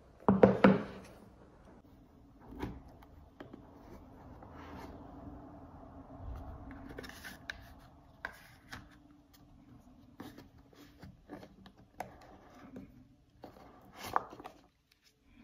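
Handling noise from a cardboard watch box. A loud scrape and knock comes near the start, then rubbing, rustling and scattered sharp clicks and taps as the box is opened and the watch and its card are handled.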